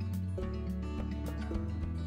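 Background music with sustained notes, a low bass line and a steady beat.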